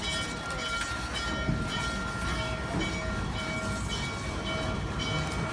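Train running on the rails: a steady low rumble, with thin high tones coming and going over it.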